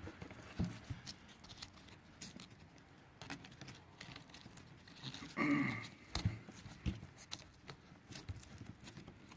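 Webbing strap being cinched down through the clamps of a lightweight rucksack's aluminum frame: scattered light clicks, taps and rubbing of strap on metal, with a brief sound of a voice about five and a half seconds in.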